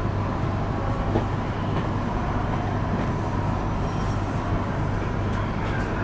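Passenger train running at speed, heard from inside the car: a steady low rumble of wheels on rail with an even hum.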